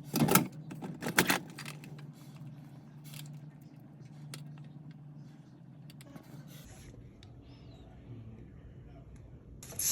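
Hard objects clattering as they are handled, in two sharp bursts in the first second and a half. After that comes a faint low steady hum with small scattered clicks.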